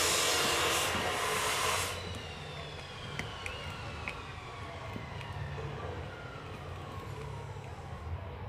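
A loud rushing machine noise stops about two seconds in. A faint whine then falls slowly in pitch as an electric motor winds down, with a few light clicks of a screwdriver on a terminal screw.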